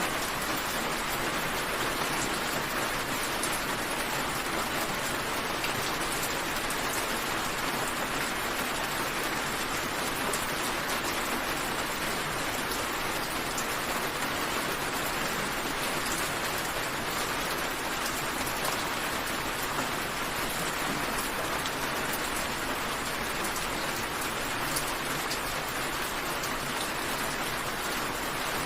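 Steady rain falling: an even hiss with faint, scattered drop ticks, unchanging throughout.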